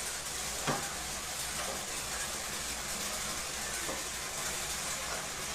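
Steady hiss of background noise, broken by a sharp click about a second in and a fainter click near four seconds.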